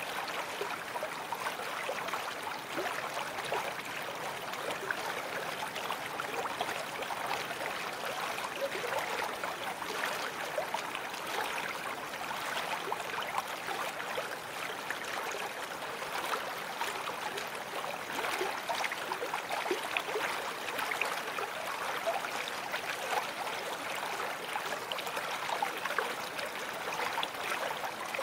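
Babbling brook: water running steadily, with many small splashes and gurgles.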